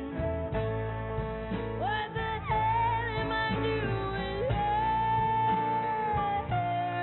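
Background music: a vintage jazz-style cover song, with a singer holding long, wavering notes over a band with a steady bass.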